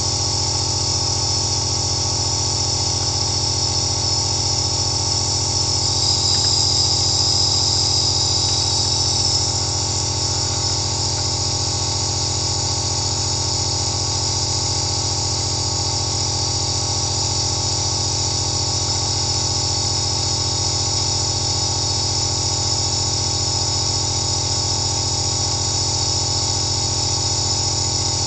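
Compressor nebulizer running steadily: a low motor hum under a high hiss of air and mist through the face mask. The hiss grows a little brighter and louder for a few seconds about six seconds in.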